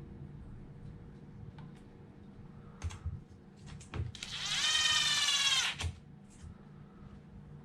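Small cordless power drill/driver spinning up with a rising whine and running for about a second and a half before stopping suddenly. A few sharp clicks and knocks of parts and the tool being handled come just before it and as it stops.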